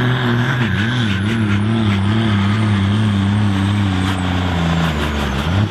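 Ford 8700 tractor's diesel engine pulling hard against a weight-transfer sledge at full load. Its engine speed wavers and slowly falls as the load grows, then rises briefly near the end.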